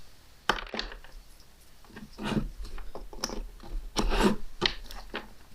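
Handling noises from a multimeter and its test leads: a sharp click about half a second in, then a run of short knocks and rubbing sounds.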